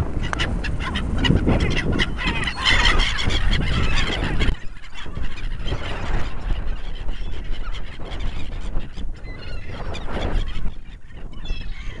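A flock of gulls calling, many squawks and cries overlapping, busiest in the first few seconds and again near the end. A low rumble runs underneath and stops suddenly about four and a half seconds in.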